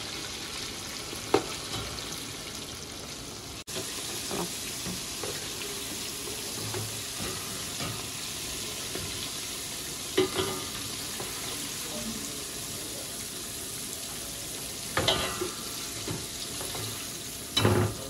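Calamari rings deep-frying in hot oil in a large stainless steel pot, a steady sizzle, with a perforated metal skimmer stirring through the oil and clinking against the pot a few times.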